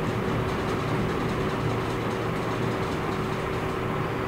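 Steady mechanical hum with one constant tone over an even background noise, unchanging throughout.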